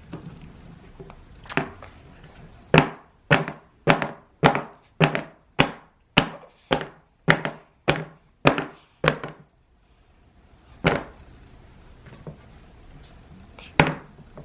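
A run of about a dozen sharp knocks on a hard surface, roughly two a second, followed by two more single knocks a few seconds apart.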